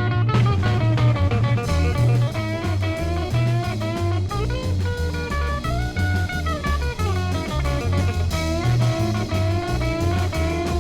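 Instrumental introduction of a bilingual Latin swing pop song: band music with a steady pulsing bass line and a melody that rises and falls, no singing yet.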